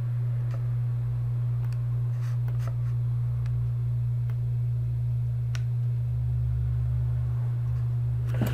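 Steady low electrical hum, with a few faint scattered computer mouse clicks.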